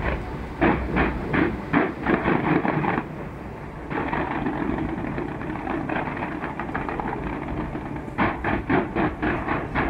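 Fireworks going off in fast runs of bangs, for the first three seconds and again near the end, with a steadier noise between.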